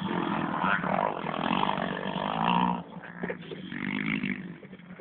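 Dirt bike engines running hard on a motocross track, loud for the first few seconds, then dropping away suddenly about three seconds in and fading after a brief rise.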